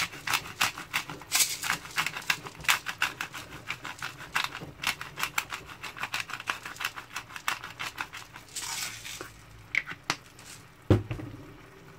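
Black pepper being ground in a hand-twisted pepper mill: a fast run of gritty clicks, about three a second, easing off after about eight seconds. A single knock near the end.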